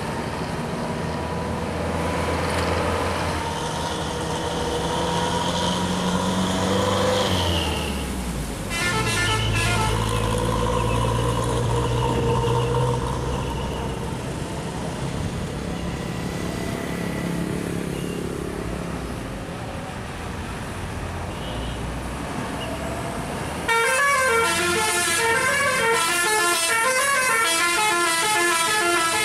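Hino AK8 bus's diesel engine revving up and dropping at a gear change, with a short burst of telolet horn about nine seconds in. Near the end, the bus's multi-tone telolet horn plays its loud, repeating melody.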